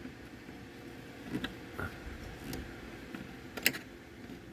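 A few light clicks and taps of a screwdriver working at the screws of a 1932 RCA radio, the sharpest one about three and a half seconds in.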